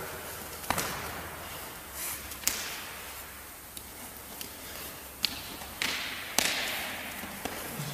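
Sharp slaps and thuds of hands and forearms striking each other and the body during Wing Chun chi sau sparring, about five separate hits with the loudest near the end. Each hit rings on briefly in a large echoing hall.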